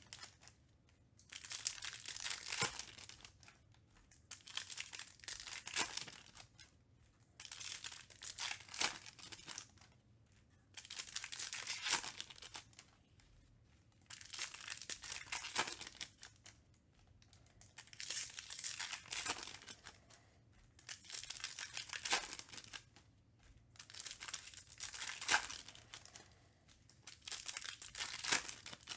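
Foil trading-card packs of 2021 Topps Stadium Club Chrome baseball torn open and crinkled by hand, one pack after another. The rustling comes in about nine short bursts, every three seconds or so, with quiet gaps between.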